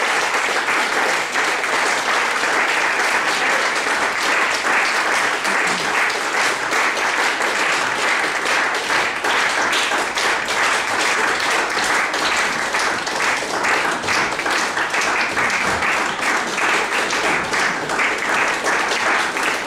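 Audience applauding: dense, steady clapping that neither builds nor dies away.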